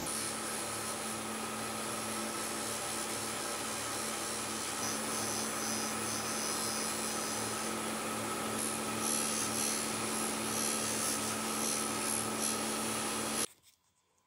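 Electric bench grinder running at steady speed while the telephone handset is pressed against its spinning wheel, a constant motor hum under a rough grinding, rubbing noise. It stops suddenly near the end.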